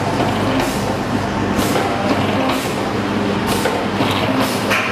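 Jelly and liquid packaging machine running: a steady machine hum with a short hiss repeating about once a second, in time with its packing cycle.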